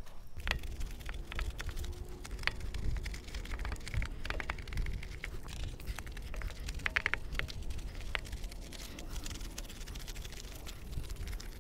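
Soapy wheel face scrubbed with a wheel face brush: irregular scratchy brushing with light clicks of the brush against the rim, over a low steady rumble.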